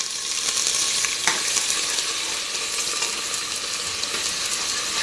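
Pounded ginger and garlic sizzling steadily in hot mustard oil as it is stirred in a pot with a metal ladle, the first frying of the tadka. A single sharp knock comes about a second in.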